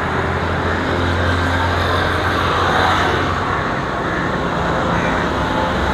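Road traffic: motorbikes, scooters and cars passing on a busy road, a steady running mix of engines and road noise.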